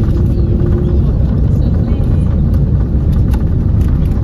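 Steady low rumble of an Airbus A330-200's engines and airflow, heard inside the passenger cabin from a rear window seat.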